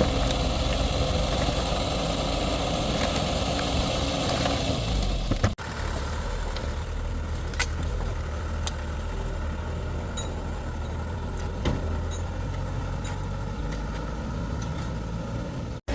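Heavy vehicle engine idling steadily, with a sudden break about five and a half seconds in, after which it runs on a little quieter with a few faint ticks.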